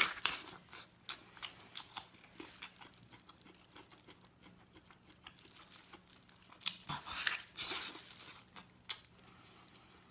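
Close-up eating sounds from biting, tearing and chewing a glazed braised pork knuckle: scattered short wet smacks and clicks that come thickest about seven to eight seconds in.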